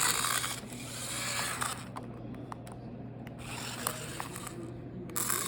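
Off-road RC car driven in short bursts, its tyres scraping and hissing over the ground in three or four spurts of about a second each, with a few small clicks between them.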